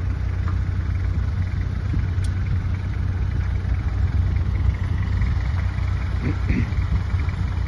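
A Mitsubishi Pajero's engine idling steadily, an even low hum.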